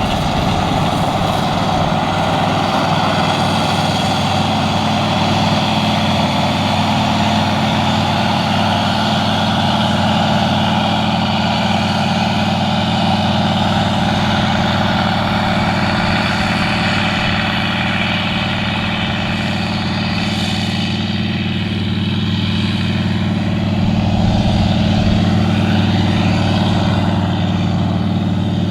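AGCO Gleaner R62 combine with a Deutz air-cooled twin-turbo V8 running hard at work while harvesting wheat: a steady, loud engine drone over the machine's broad rushing noise, swelling slightly near the end.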